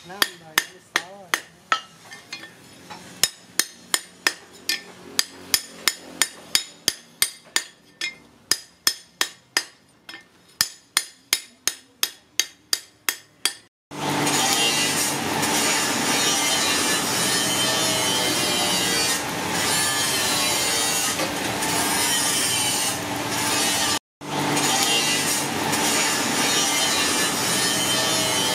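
A hand hammer striking a rusty steel cleaver blade on a steel anvil, sharp blows about two a second that quicken toward the end. About halfway through this gives way to a steady loud rushing noise from a charcoal forge fire, which cuts out briefly near the end.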